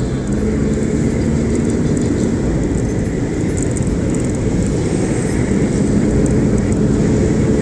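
Inside a moving car: steady low engine and road rumble, with a faint low hum that comes and goes.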